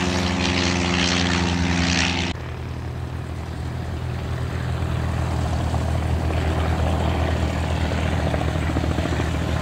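Single-engine propeller aircraft flying overhead with a steady engine-and-propeller drone. About two seconds in, the sound cuts abruptly to another single-engine propeller plane's engine running through its takeoff roll and climb-out, slowly growing louder.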